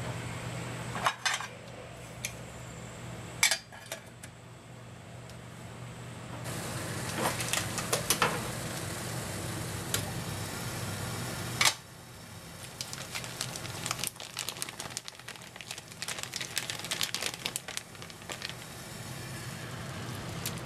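Metal clinks and knocks of a square camping pot and its lid on a gas stove, a few sharp ones spread through, over a steady hiss as the burner heats the water. The hiss grows louder about six seconds in and turns crackly in the second half as the water heats.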